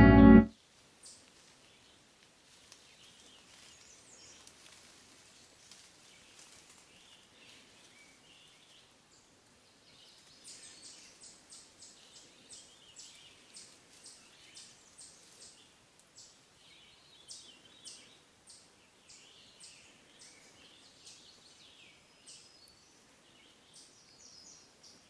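Faint songbirds chirping, with short high notes that come thick and fast from about ten seconds in, over a quiet hiss.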